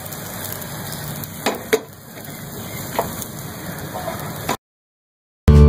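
Makki ki roti batter sizzling steadily in a nonstick frying pan, with two sharp knocks about a second and a half in and another at three seconds. The sound cuts out shortly before the end, and guitar music starts.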